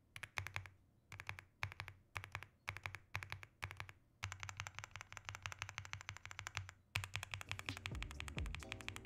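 Fast typing on an Aula F75 mechanical keyboard: rapid key clicks in short bursts broken by brief pauses, then a longer unbroken run. Music comes in underneath about two-thirds of the way through.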